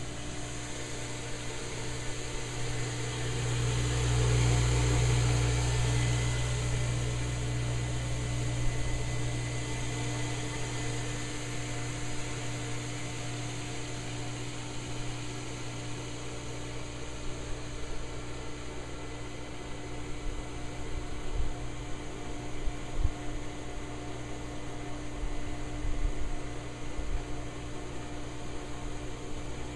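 Steady machine hum with a low drone and a faint higher tone over a light hiss. The drone swells a few seconds in and eases off, and a few short low bumps come in the second half.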